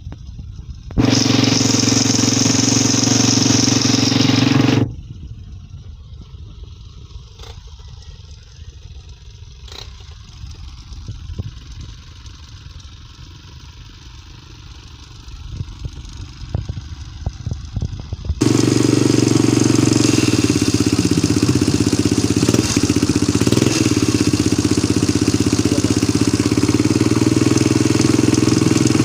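Motorcycle engine running after being taken apart and reassembled. It runs loud and steady for a few seconds, drops to a much quieter low rumble, then runs loud and steady again from about two-thirds of the way in.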